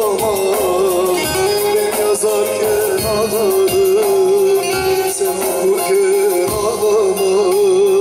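Male folk singer holding a long, ornamented vocal line with a wavering vibrato, over a bağlama (long-necked Turkish saz) plucked beneath it, in a Teke-region folk song.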